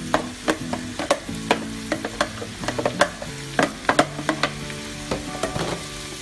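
Chopped tomatoes frying with sautéed onion, garlic and ginger in a pan, sizzling as they are stirred, with a utensil clicking and scraping against the pan several times a second.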